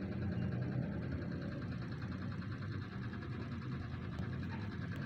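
Steady low mechanical hum, like a small motor running continuously.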